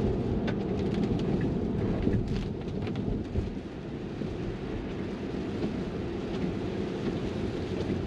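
Cabin noise of an electric Tesla driving in the rain: a steady low rumble of tyres on the wet road, with scattered light ticks of raindrops on the glass roof, mostly in the first few seconds.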